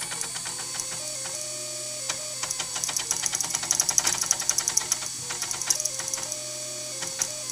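A homemade RepRap 3D printer running a print. Its stepper motors whine in short tones that step up and down in pitch, over a dense, rapid clicking and clanking from the dot-matrix printer carriage axes. Those axes move in coarse 0.4 mm full steps without micro-stepping, which is what makes the printer sound clanky.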